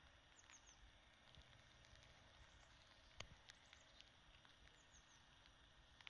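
Near silence: faint outdoor background with a few soft clicks, the clearest about three seconds in, and two faint runs of three quick high falling chirps from a small bird, one near the start and one near the end.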